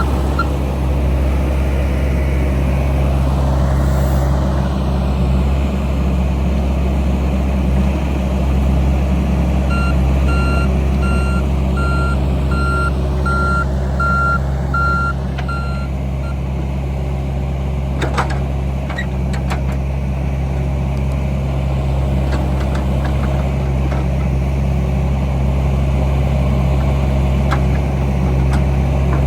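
Heavy diesel earth-moving machine running steadily, its back-up alarm beeping in a regular series for several seconds near the middle. A few sharp knocks come a little later.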